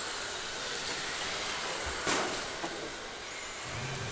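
Small electric race cars running around the track as a steady whirring hiss, with a sharp click about two seconds in.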